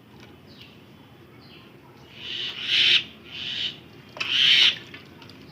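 Water sloshing and splashing in a bowl as pieces of raw goat meat are rubbed and rinsed by hand. The sound comes in three bursts from about two seconds in.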